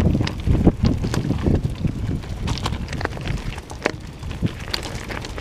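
Mountain bike rolling down a loose-stone trail: tyres running over rocks, with irregular clacks and knocks from stones and the bike rattling. Low wind rumble sits on the microphone underneath.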